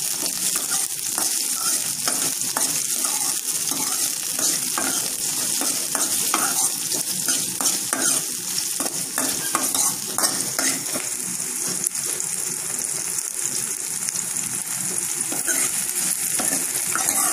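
Chopped shallots, green chilli and curry leaves sizzling in hot oil in a kadai as they are sautéed, with a metal ladle scraping and clinking against the pan as it stirs.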